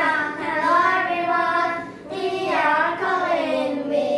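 Children singing a song together in long held notes.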